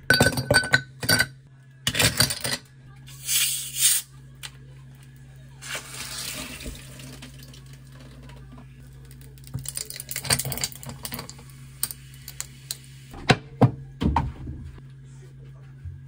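Dishes and utensils clattering and clinking in a kitchen, in scattered bursts. A short hiss like running tap water comes in the middle. A low appliance hum runs underneath.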